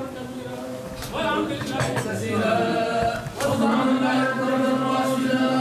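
Islamic religious chanting: voices held on long, drawn-out notes, breaking off about a second in and sliding back up into a held note after the middle.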